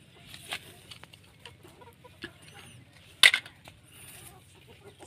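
Plastic toy cars knocking and clattering against a plastic mesh basket as they are gathered into it: a few light clicks, then one sharp clatter about three seconds in.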